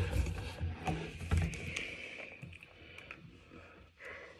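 Dull thumps and knocks of plastic drink bottles and a cap being handled on a desk, strongest in the first second and a half, then fading to faint handling clicks.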